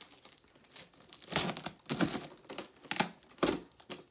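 Packing tape on a cardboard shipping box being picked at and ripped, in a run of short scratchy rips about every half second, starting about a second in; the tape is hard to get off.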